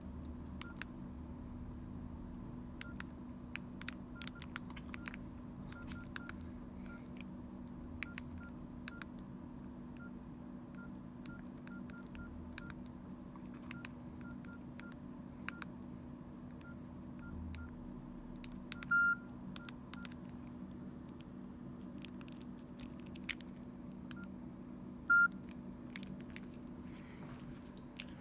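Mobile phone keypad tones from a Nokia N82: short beeps, all of one pitch, each with a button click, come in quick irregular runs as keys are pressed. Two longer, louder beeps sound in the second half, over a low steady hum.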